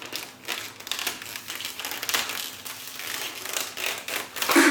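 Plastic dash cover being bent and pressed into place over the dashboard, giving irregular crinkling and crackling, with a louder rustle near the end.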